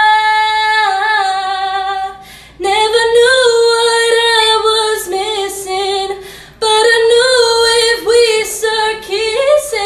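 A young woman singing a cappella: a long held note, then two more sung phrases with wavering runs, each broken by a brief pause for breath.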